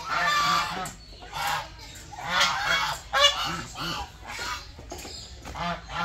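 A flock of domestic geese honking again and again, loud harsh honks coming about every half second to a second, some overlapping.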